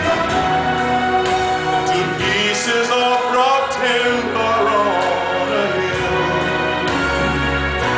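A man singing a gospel song over instrumental accompaniment, holding long notes that slide in pitch.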